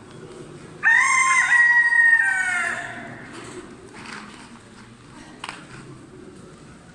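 A rooster crowing once, about a second in: one loud call that holds its pitch for over a second, then falls away.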